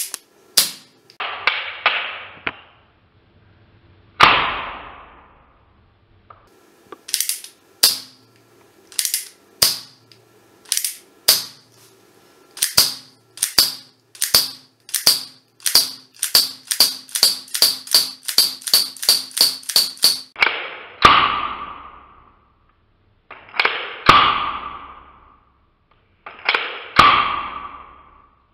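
The action of an Umarex Single Action Army CO2 airsoft revolver being worked by hand: a long run of sharp metallic clicks that speeds up to about four a second, like the cylinder being turned through its stops. Then three loud sharp snaps about three seconds apart, each ringing away, with smaller clicks before each as the hammer is cocked again.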